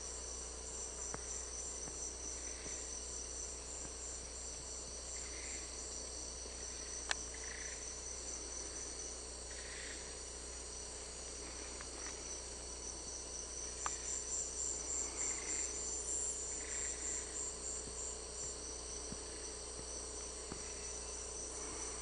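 Rainforest insect chorus: several insects keep up steady high-pitched trills, and one pulsing trill grows louder from about fourteen to eighteen seconds in. Softer, lower calls come every few seconds, and there is one sharp click about seven seconds in.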